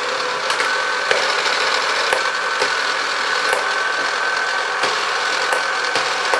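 Tandy/Radio Shack Armatron toy robotic arm's motor and plastic gearbox running, a steady whirring drone with a thin whine and sharp clicks about every half second to second.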